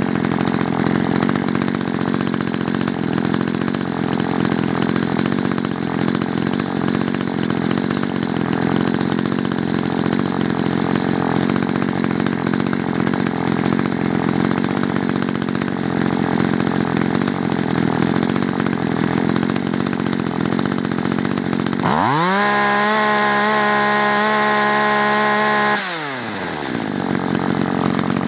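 Two-stroke chainsaw engine idling steadily at about 2,700–2,900 rpm. Near the end the throttle is opened and the engine revs up sharply to a high, steady full-throttle whine for about four seconds, then falls back to idle.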